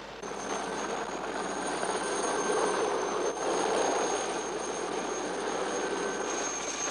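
Sud Aviation Alouette II turbine helicopter flying over: a steady high-pitched turbine whine over the rushing of the engine and rotor.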